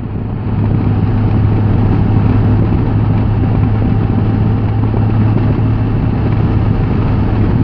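Touring motorcycle cruising at a steady speed: a steady engine drone with wind and road noise. It gets a little louder about half a second in, then holds.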